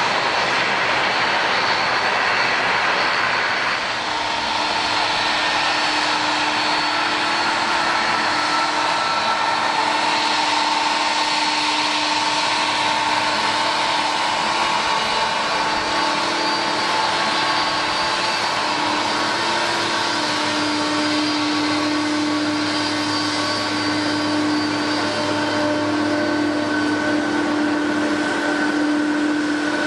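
Boeing 777-200's twin jet engines whining steadily at low thrust as the airliner taxis, a rushing hiss with several steady whistling tones over it. The whine grows clearer about four seconds in.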